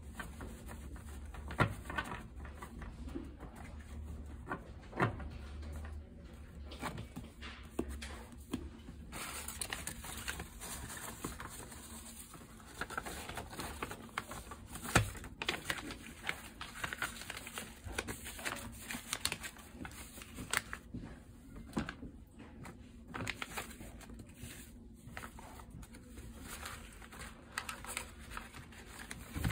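A stack of loose paper notecards handled by hand: cards tapped and shuffled against a table, with a few sharp taps. Then the cards are slid into a paper sleeve and wrapper, with paper rustling and crinkling.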